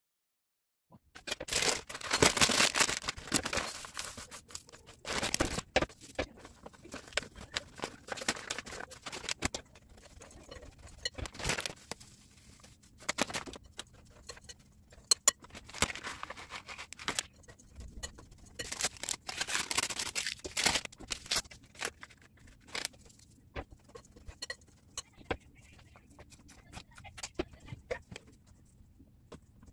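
Starting about a second in, oat flakes and grated coconut are stirred with a metal fork in a glass bowl. The mixing makes irregular dry rustling and scraping, with the fork clicking against the glass.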